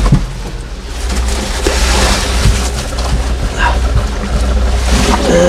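Boat engine running with a steady low hum, with a few short knocks and clatter on deck.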